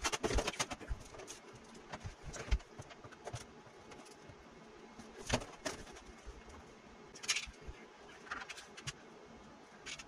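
Scattered light knocks, clicks and rustles as a mini split indoor unit and its metal backing plate are handled and pressed against a masonry wall. The loudest knocks come just after the start, about two and a half seconds in and about five seconds in.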